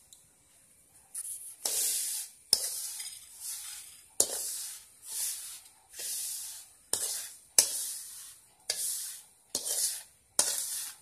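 Dry-roasted semolina (rava) being tipped and shaken out of a metal wok into another pan. About a second in, a run of short swishing strokes of sliding grain begins, roughly one a second, several of them opening with a light metal click.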